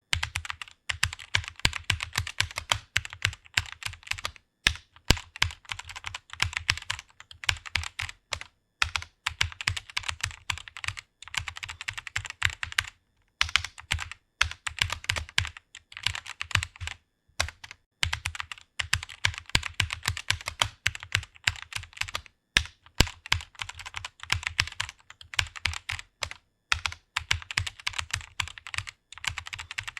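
Computer keyboard being typed on quickly and continuously, a rapid run of key clicks broken by brief pauses of about half a second to a second.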